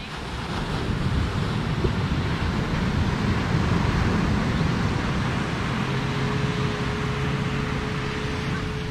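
Ocean surf breaking and washing up a sandy beach, with wind buffeting the microphone in a low rumble. A low steady hum comes in about two-thirds of the way through.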